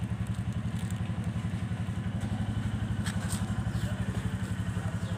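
An engine idling steadily, a low even beat of about nine pulses a second.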